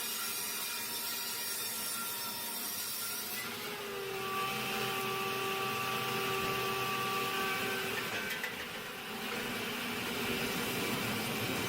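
Sawmill saw cutting through wood: a steady hissing whine, with a clear ringing tone that comes in about four seconds in and stops near eight seconds.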